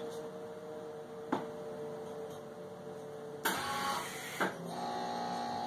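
MIG welder humming, then a single short tack weld about three and a half seconds in: roughly a second of arc noise, a click, and a steady tone after it.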